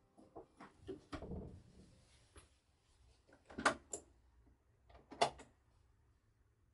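Apartment front door closing with soft knocks about a second in, then two pairs of sharp clicks from the door's lock, about a second and a half apart.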